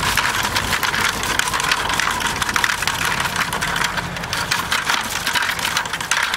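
Homemade wire-mesh crayfish trap being shaken out over a plastic bucket. A dense, rapid clatter of crayfish dropping into the bucket mixes with the wire mesh rattling, and it goes on without a break.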